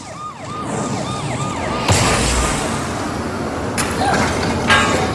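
Tornado sound effects: a fast warbling siren over a loud, steady rushing noise. A crash comes about two seconds in, and more smashing and clattering near the end.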